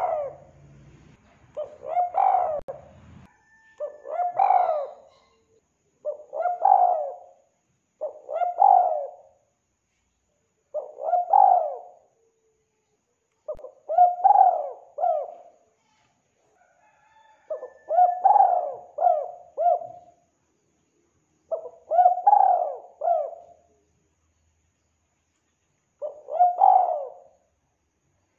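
Spotted dove (tekukur) cooing: about ten phrases of two to four coos each, repeated every two to four seconds, the later phrases with longer pauses between.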